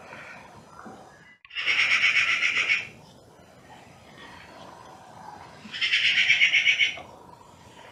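Two loud, rapid trilled animal calls, each about a second long: the first about a second and a half in, the second about six seconds in.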